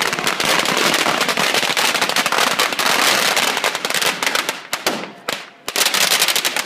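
Strings of firecrackers going off in a rapid, continuous crackle of bangs. After about four and a half seconds it thins to scattered cracks with short gaps, then a last dense flurry ends abruptly.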